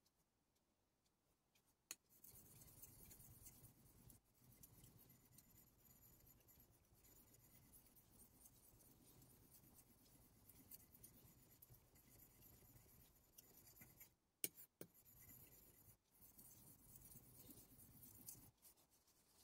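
Steel blade of a Deba knife scraping in steady polishing strokes across a Japanese natural whetstone (Okunomon koppa), faint and scratchy. There is a sharp click as the blade goes down on the stone, and a couple of sharp knocks partway through.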